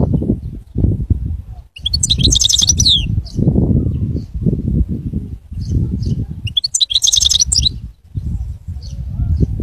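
Caged European goldfinch singing: two bursts of rapid, twittering high notes, about two seconds in and again about seven seconds in, with a few single high notes between them. A loud, uneven low rumble runs underneath.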